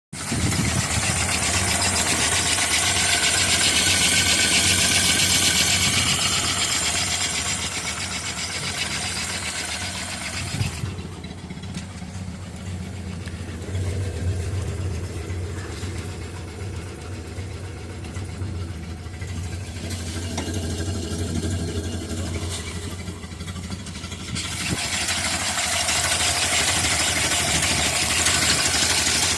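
Engine running steadily at idle, its intake manifold crack and exhaust leak repaired. A strong hiss rides over the engine for the first ten seconds or so and again near the end; the engine sounds quieter in between.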